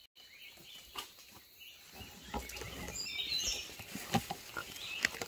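Small birds chirping in the tree canopy, a few short calls from about three seconds in, over rustling and a few close knocks from handling the rifle.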